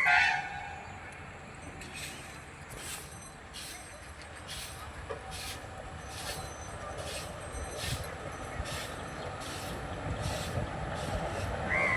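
A crow caws once at the start. After it comes a run of regular hissing pulses, a little more than one a second, over a low rumble.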